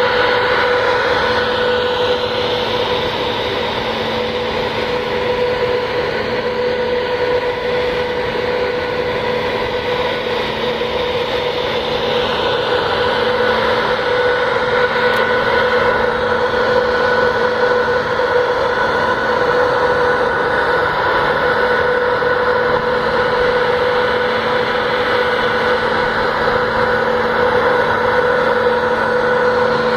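A large passenger ferry's engines and on-board machinery running, a steady drone with several constant hum tones over a wash of noise.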